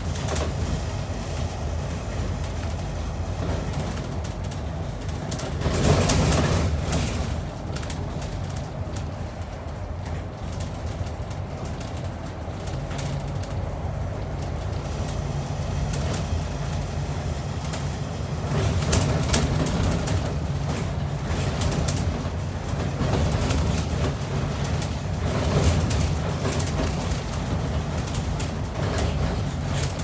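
Interior of a Scania N230UD Optare Olympus double-decker bus on the move: its five-cylinder diesel engine and road noise running as a steady low rumble with rattles. The noise swells louder about six seconds in and again a few times later.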